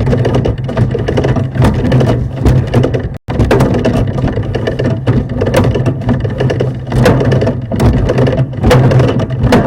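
Sewer inspection camera being pushed through a house sewer lateral: a steady low hum with irregular clicking and scraping as the camera head and push cable work along the pipe. The sound cuts out completely for a moment about three seconds in.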